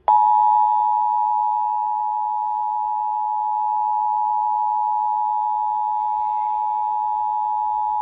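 Emergency Alert System attention signal: the two-tone 853 and 960 Hz alarm, held steady for about eight seconds and then cut off sharply. It announces an emergency alert, here a Child Abduction Emergency (Amber Alert).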